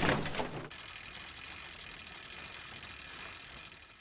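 Intro sound effect: the tail of a glass-shatter effect dies away in the first second, then a fast, steady ratcheting click runs on and fades out at the end.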